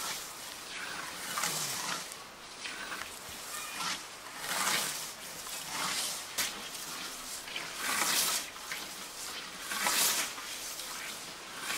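A scythe swishing through tall meadow grass in steady mowing strokes, about six strokes roughly one every one and a half to two seconds.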